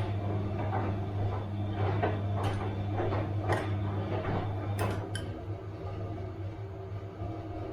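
Bosch washing machine running a wash, its motor humming while the drum turns and the load clinks and knocks against it about twice a second. About five seconds in, the hum and knocking stop and the drum goes quiet.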